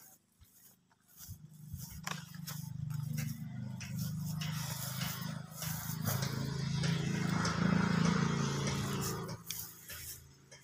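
A motor's low, steady drone with a rushing noise that builds over several seconds, is loudest about three-quarters of the way in, then fades shortly before the end.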